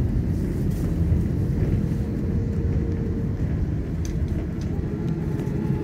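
Low, steady rumble inside the cabin of an Airbus A330-900neo rolling out on the runway after touchdown: engine noise and the landing gear running on the runway, easing slightly as the aircraft slows.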